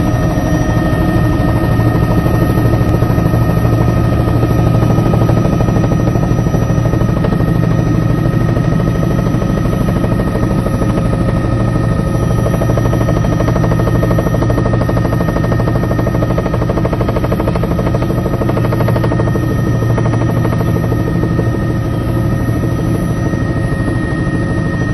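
Helicopter heard from inside its cabin: steady, loud rotor and turbine engine noise with rapid blade pulsing and a constant high-pitched whine.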